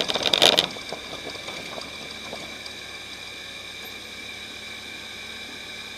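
Off-road race vehicle's engine and rattle, loud for about the first half-second, then stopping abruptly. A steady, quieter high whine and hiss is left.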